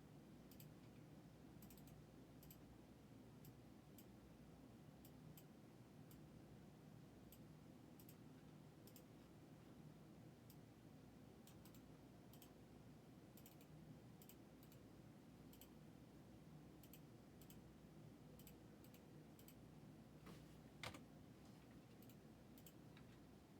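Near silence with faint, irregular clicks of a computer mouse, and one louder click near the end.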